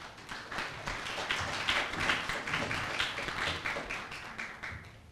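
Audience applauding, swelling over the first second and dying away near the end.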